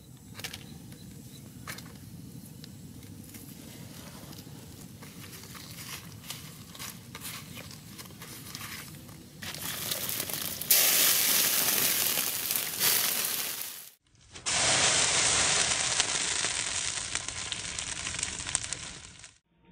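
Pig liver sizzling on a hot flat rock over a wood fire: a loud, even hiss that starts about halfway through, breaks off briefly, then resumes until just before the end. Before it, a quieter stretch with a few faint clicks.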